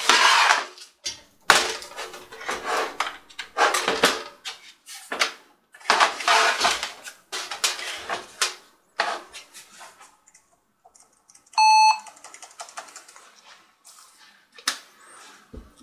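Plastic clattering and rubbing of a laptop being handled. About two-thirds of the way through, a single short, loud electronic beep from the Lenovo ThinkPad T540p as it is switched on for a boot test.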